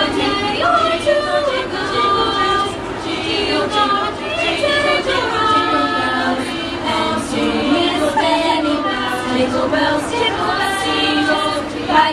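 Girls' choir singing together, many voices held in chords.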